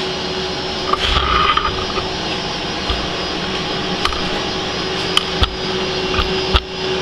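Vertical milling machine running, its cutter taking a cleanup pass across the exhaust manifold's flange faces to surface them flat: a steady mechanical noise over a constant hum, with scattered sharp ticks in the second half.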